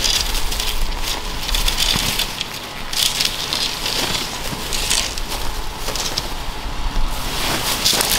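Dry fallen leaves crunching and rustling underfoot, mixed with tent fabric rustling as the tent is raised, in an irregular crackle.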